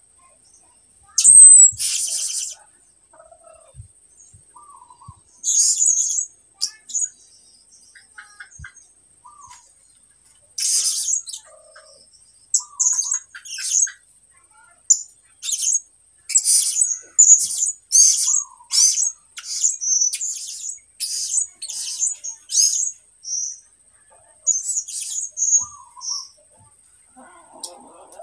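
Year-old caged songbird (a 'turipos') practising its song in short, high-pitched chirping phrases: a loud burst about a second and a half in, a few scattered phrases, then a quick run of repeated chirps through the second half. It is a young bird still learning to sing, its song halting and broken.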